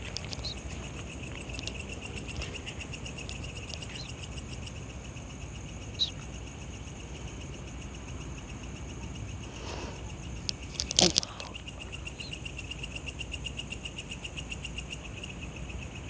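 Crickets trilling steadily in rapid pulses at two pitches, with a few brief clicks, the loudest about eleven seconds in.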